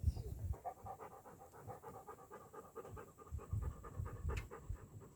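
Bird dog panting rapidly and evenly, several breaths a second.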